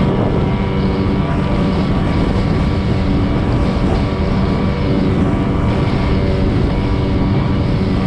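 A boat's outboard motor running steadily under way, with wind and water rushing over the microphone.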